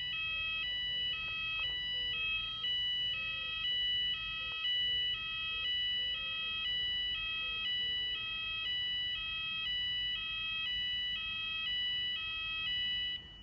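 Weatherproof Fulleon Symphoni fire alarm sounder on a weekly fire alarm system test, sounding an alternating two-tone alarm that switches pitch about twice a second. It cuts off suddenly near the end as the test is stopped.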